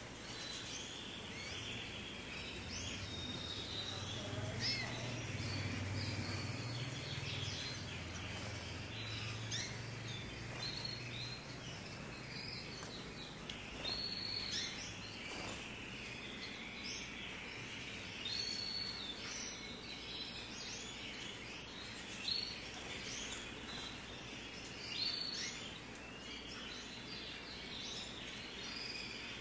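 Water hissing steadily from a small shower sprayer over a flight cage of canaries, with many short canary chirps and calls throughout, a few louder than the rest.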